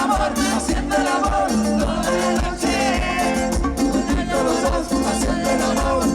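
Live Latin dance band playing, with a steady, driving beat of bass and percussion under melodic instrument lines.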